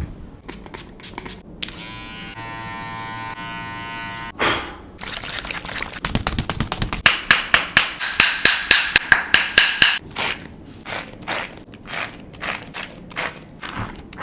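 Cupping therapy equipment handled on a back: a steady pitched hum for about two seconds, then a fast run of sharp clicks and taps that thins to about two clicks a second near the end.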